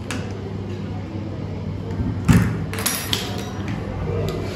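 A small metal hook-and-eye latch on a wooden door being unhooked: metallic clicks and rattles, with a single heavier knock against the door about two seconds in, over a steady low hum.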